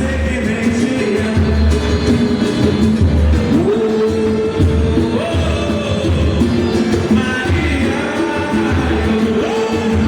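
Live samba pagode band playing: a singing voice over percussion and a deep, regularly repeating low beat.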